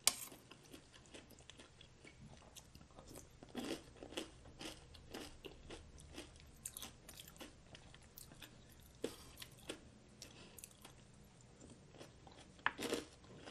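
A person chewing crisp food close to the microphone: a steady run of small crunches and smacks, with a few louder bites about four, nine and thirteen seconds in.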